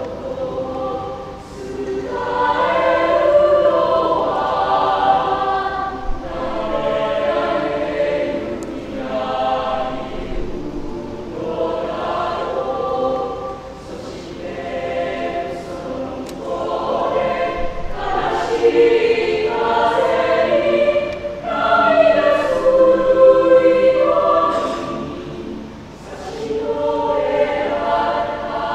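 Mixed youth choir singing, with phrases that swell and fade and brief dips between them.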